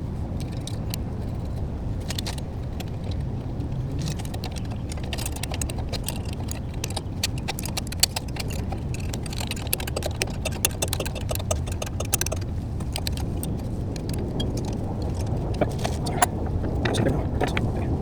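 Light metallic clinking and rattling of hand tools and small parts being handled, many quick ticks, busiest from about four to twelve seconds in, over a steady low hum.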